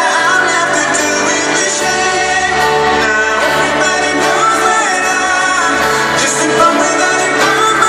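Live pop band performing with acoustic guitars and sung vocals, heard from among the arena audience.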